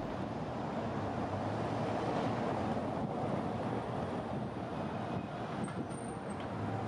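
Steady street traffic noise, with a car passing close by near the end.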